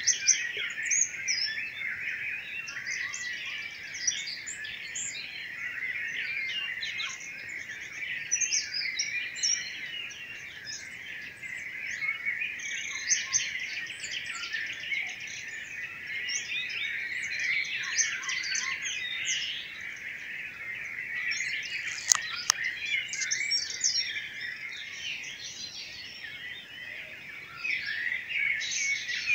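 Pre-dawn chorus of many songbirds singing at once from all sides, a dense overlapping tangle of chirps and trills. A single sharp click about 22 seconds in.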